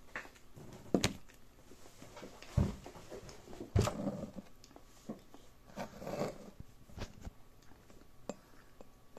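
A person chewing a mouthful of banana, soft wet mouth sounds, broken by a few sharp handling knocks on the phone about a second in, at about two and a half seconds and near four seconds.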